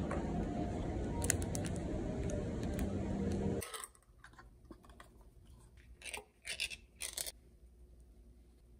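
A steady background hum that stops abruptly. Then a pull-tab tuna can's metal lid is peeled open, three short scraping rips about half a second apart.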